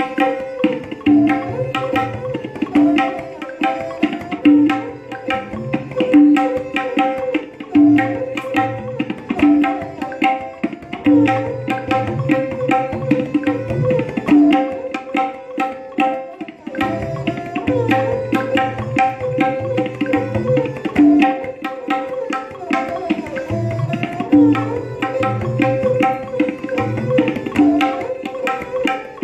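Tabla playing a kayda in teental on the bols dha ge tira kita tina kina: quick right-hand strokes on the dayan with resonant bass strokes on the bayan. Underneath runs a lehra, a short melody repeated to keep the sixteen-beat cycle.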